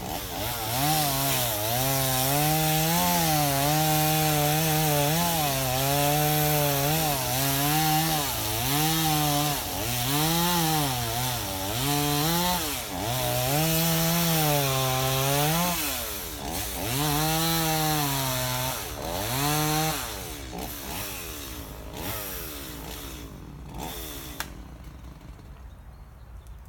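Two-stroke chainsaw running at high revs while cutting wood, its pitch dipping under load and climbing again over and over. The engine note drops away about twenty seconds in.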